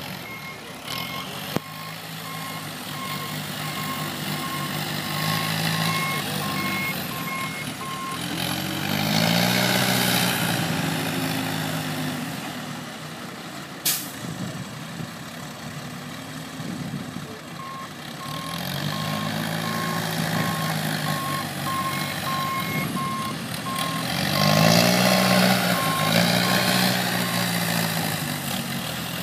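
Harlo rough-terrain forklift working: its reversing alarm beeps steadily through the first several seconds and again over most of the latter half, while the engine revs up and down twice as it drives and lifts. A single sharp knock comes about halfway through.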